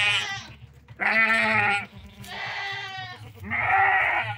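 Goat bleating repeatedly: the end of one call, then three long quavering bleats about a second and a half apart, the middle one quieter.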